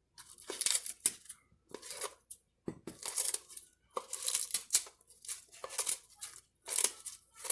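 Fresh soursop leaves being cut in half one after another: a string of short, crisp ripping and rustling sounds, about one a second.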